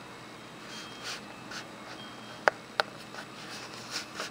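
Small clicks and taps of recovered .22LR bullets and brass cartridges being handled by fingers on a plastic cutting mat, with two sharp clicks about halfway through and a few softer ticks around them.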